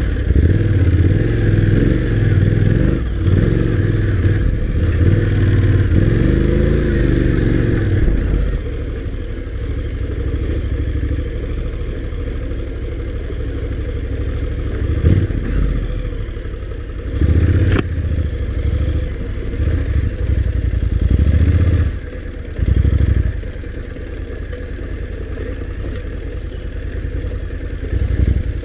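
Honda NC750X's parallel-twin engine revving and pulling hard for the first several seconds, then running more quietly, with a few short bursts of throttle later on. The bike clatters over a rough sand and gravel track.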